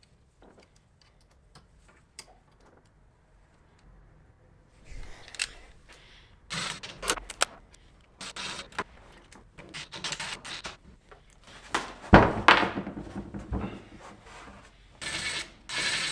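Bolts being fitted and tightened with a 5 mm wrench to fix a CNC machine's aluminium X rail to its Y rails. Scattered small ticks give way to irregular metal clicks and clinks, a sharp knock about twelve seconds in, and a denser rattling stretch near the end.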